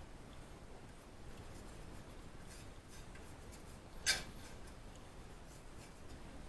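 Faint rubbing as anti-seize compound is spread onto the new wheel hub's mounting face, with one short sharp click about four seconds in.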